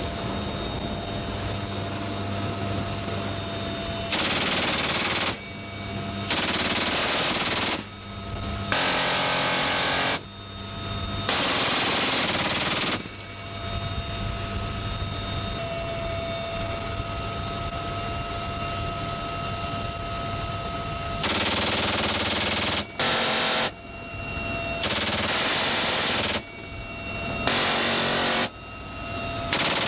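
GAU-18 .50-calibre M2 Browning machine gun fired from a helicopter door mount in eight bursts of one to two seconds each, four in the first half and four in the second. Between the bursts the helicopter's turbine and rotor drone steadily with a constant whine.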